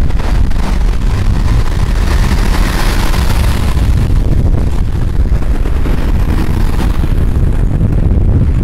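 Street traffic noise under a heavy, steady low rumble of wind on the microphone, with a louder swell of traffic about two to three seconds in.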